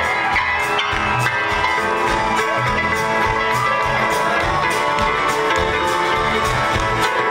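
Live folk-rock band playing at full volume: acoustic guitars and banjo over a steady drum beat.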